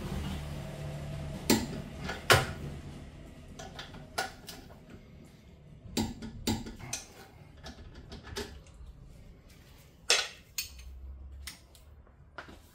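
Hand tools and metal parts clinking and knocking as they are handled and set down: a few separate sharp clanks, the loudest about a second and a half in, just after two seconds and around ten seconds. A low hum runs under the first two seconds.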